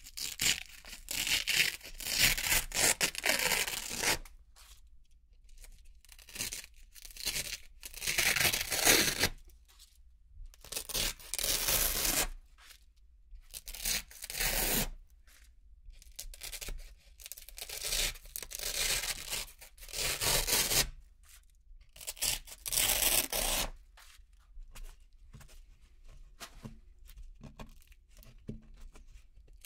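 Round Velcro (hook-and-loop) discs being peeled one after another off a Velcro-covered board: a series of crisp ripping tears, each lasting one to four seconds, with short pauses between, fainter near the end.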